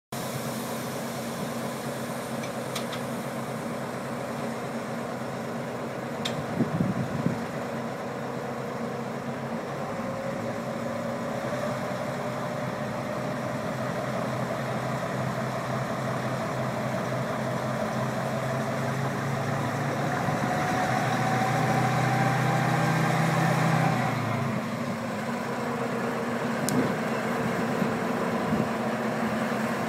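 1957 Gmeinder four-wheel diesel-hydraulic shunting locomotive (ex-DB class 323), its exhaust system newly refitted, running on test. The diesel idles steadily with a brief clatter early on. Its revs then climb slowly as the loco pulls away, drop back sharply about four-fifths of the way through, and settle to a lower steady run.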